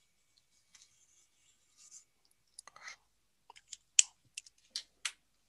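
Light clicks and taps as a cardboard tube and a marker are handled and set down on a paper-covered desk. The sharpest tap comes about four seconds in, followed by three smaller ones.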